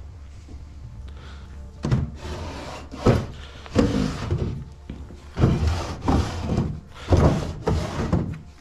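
A series of irregular knocks and thuds on wood, about seven over six seconds, starting about two seconds in.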